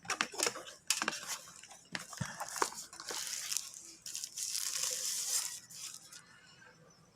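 Phone box packaging being opened by hand: cardboard and plastic handled with scattered clicks and crinkling, then a longer tearing, sliding hiss from about four to six seconds in.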